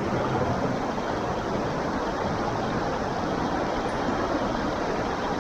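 Steady, even rush of a creek's moving water, the stream running high.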